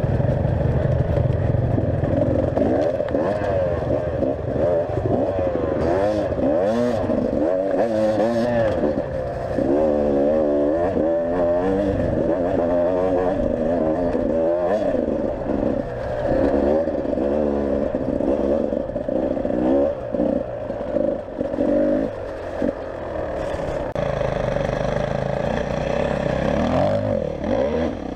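Enduro motorcycle engine being ridden hard off-road, its pitch rising and falling again and again with the throttle, with occasional knocks.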